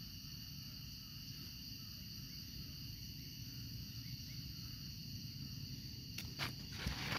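Faint steady chorus of insects buzzing high over a low rumble, with a few sharp crackles near the end.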